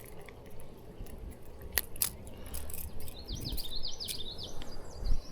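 A small animal's chirping call: a quick run of about ten high chirps lasting a second and a half, after two sharp clicks.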